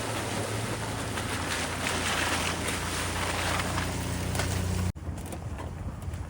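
A truck's engine running with a steady low hum under a heavy rushing noise. About five seconds in it cuts abruptly to a quieter scene with a softer hum and hiss.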